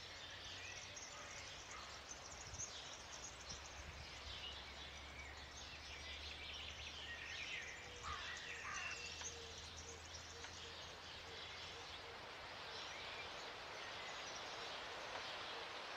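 Faint woodland ambience: a soft hiss with small birds chirping, most of them in the middle stretch, over a low steady hum.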